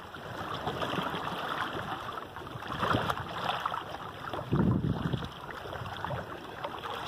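Water rushing and splashing past a sailboat's stern around the Cape Horn self-steering oar, with wind buffeting the microphone; a louder surge comes about four and a half seconds in.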